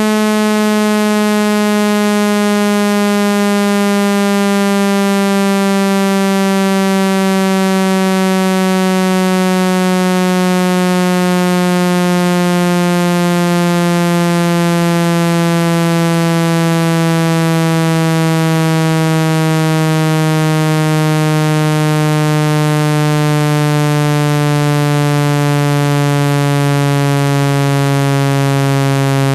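Synthesized water-eject tone for clearing water out of a phone speaker: a loud, buzzy low tone rich in overtones, slowly falling in pitch.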